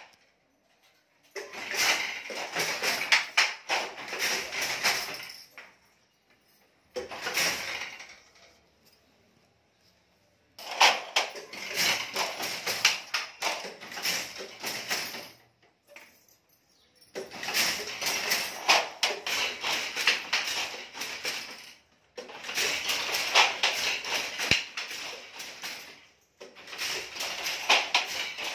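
Silk handloom with a jacquard head working: rapid wooden and metal clacking of the shuttle being thrown and the beater knocking in each pick. It comes in about six bursts of a few seconds each, with near-silent gaps between them.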